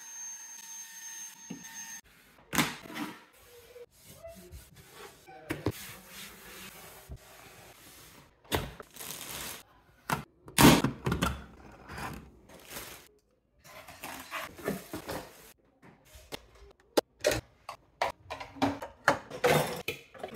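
A handheld vacuum runs briefly with a steady whine, then comes a series of irregular knocks, clicks and clatter of plastic containers and dishes being handled and set down. The loudest clatter is about halfway through.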